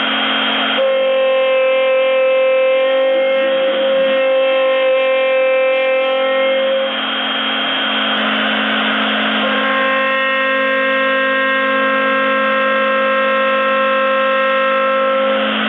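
CNC router spindle with a 6 mm cutter roughing a wooden block turned on a rotary axis: a loud, steady whine with several overtones. The whine shifts in tone about a second in, around seven seconds in, and again near nine and a half seconds.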